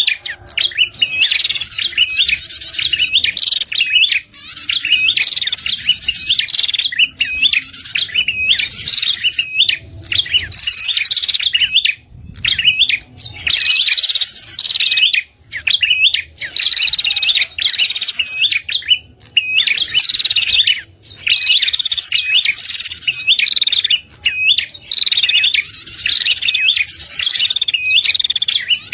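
Prenjak kepala merah (red-headed prenjak) lure call: rapid, high chirping phrases repeated over and over with short breaks, a bird-catcher's calling track used to draw in wild prenjak.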